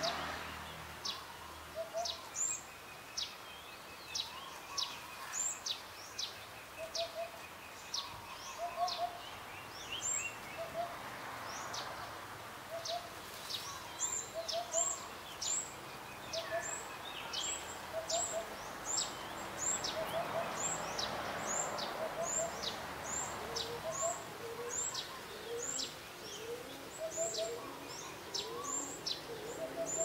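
Hoopoe (Upupa epops) giving short low hooting notes in groups of two or three, repeated every second or two. Throughout, another bird's high, thin chirps sweep downward one or two times a second and grow more regular in the second half.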